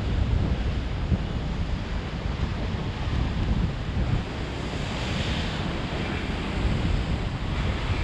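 Sea surf breaking and washing around rocks, with wind buffeting the microphone as a steady low rumble. The wash swells about five seconds in.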